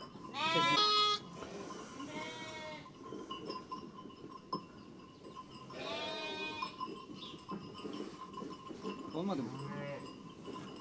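Sheep and lambs bleating: four separate calls, the first and loudest about half a second in, the others near two, six and nine seconds in.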